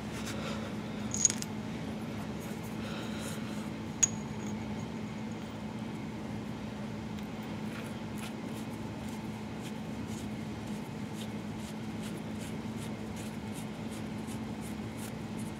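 Steel castellated spindle nut being fitted to a forklift wheel hub: two sharp metallic clinks in the first four seconds, then faint light ticking as the nut is spun down the spindle threads by hand, over a steady low hum.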